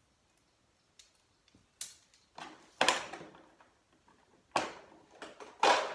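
A series of sharp metal clanks and knocks with short ringing tails, several seconds apart, from steel three-point hitch parts being handled and unhooked on a subcompact tractor; the loudest come about three seconds in and near the end.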